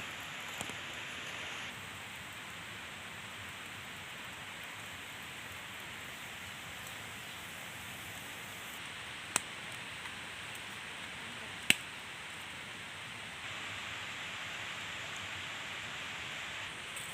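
A steady hiss, with two sharp clicks about nine and twelve seconds in.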